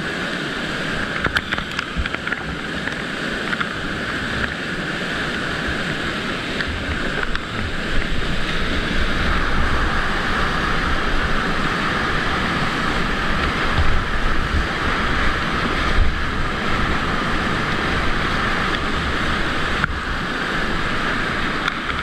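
Rushing whitewater pouring over a river weir, heard up close from a kayak in the churning water, with splashing and buffeting on the microphone. The low buffeting grows heavier from about eight seconds in as the boat drops into the foam.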